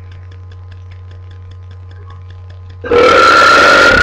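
A long, loud deliberate burp that starts suddenly about three seconds in and is still going at the end. Before it there is only a steady low electrical hum.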